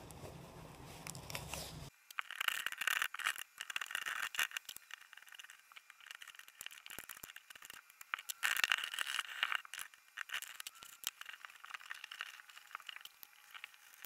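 Razor-blade scraper scratching old caulk off a bathtub surface in short, irregular strokes with sharp clicks. The strokes come loudest about two seconds in and again past the middle. A low hum at the start cuts off sharply about two seconds in.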